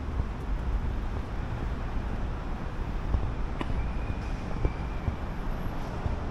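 City street ambience heard while walking: a steady rumble of road traffic with wind buffeting the microphone. A faint, thin high squeal lasts about a second and a half around the middle.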